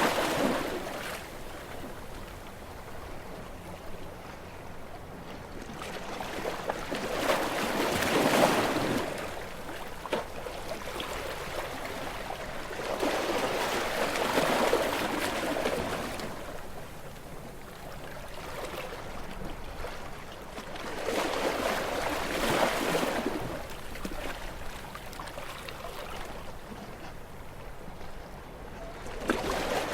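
Sea waves breaking against rocks and washing back, one surge of rushing water about every seven to eight seconds, with a softer wash between.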